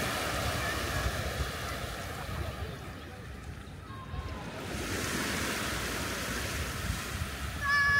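Sea waves washing onto a beach, swelling twice into a hiss and ebbing, over a steady rumble of wind on the microphone. Near the end comes a short, high-pitched cry.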